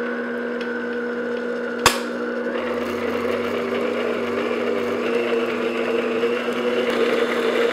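Electric stand mixer running on low speed, its motor humming steadily as the flat beater mixes chocolate cake batter in a glass bowl; the hum wavers a little with the load of the batter. There is one sharp click a little under two seconds in, and the motor winds down right at the end.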